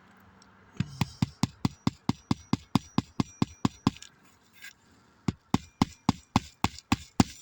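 Hammer driving roofing nails into a shingle: two quick, even runs of strikes, about four a second, with a short pause between them.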